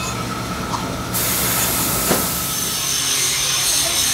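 Steady workshop machinery noise with a hiss, and a single knock about two seconds in.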